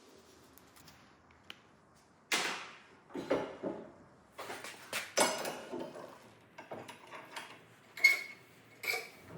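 Metal tools and workpieces being handled on a workbench: irregular clanks and knocks, two of them, near the end, ringing briefly like struck steel.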